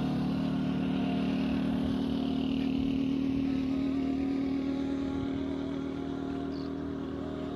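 Motorcycle engine running steadily at cruising speed, heard from on board.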